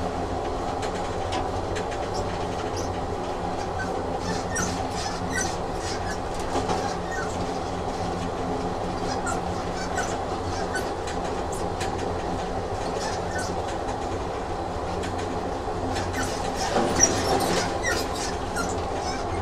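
Train sound effect: a train running steadily with a continuous hum, scattered clicks from the wheels and track, and a brief louder rattle about 17 seconds in.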